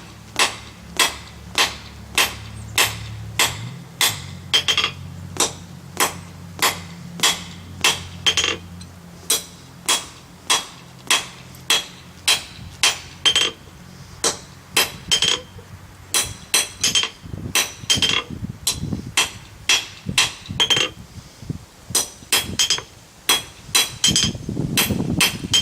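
Blacksmith's hammer striking steel on an anvil in steady, rhythmic blows, about two to three a second, each with a bright ring. A low hum runs underneath for the first several seconds.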